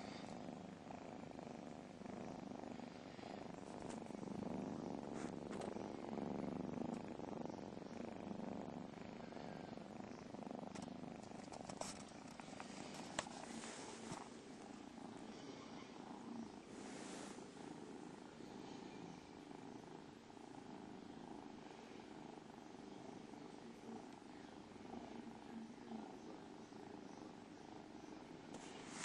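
A mother cat and her nursing kittens purring steadily, with a few faint clicks about halfway through.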